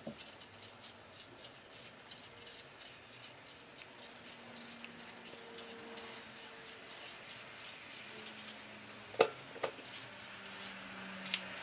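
Small knife peeling and cutting firm peaches by hand: faint small clicks and scrapes of the blade through skin and flesh, with two louder knocks a little after nine seconds.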